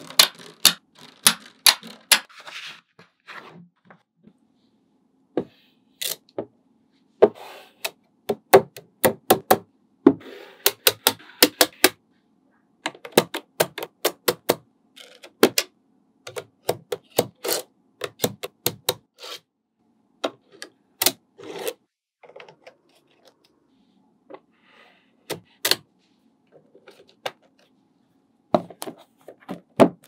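Small magnetic balls clicking and snapping together as they are placed one after another: sharp, irregular clicks in quick clusters with short pauses between them.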